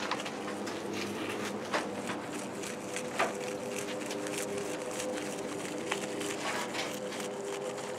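A rabbit chewing sunflower leaves close up: quick crisp clicks of munching, with a few sharper snaps, over a steady low hum.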